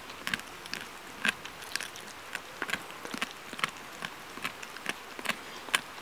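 A dog chewing a raw kokanee salmon: wet, irregular crunches and clicks of teeth on the fish, about two or three a second.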